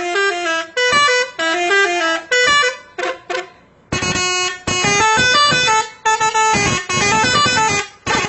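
Bus 'telolet' multi-tone horn playing a melody: a quick run of stepped notes going up and down, in several phrases with short breaks between them.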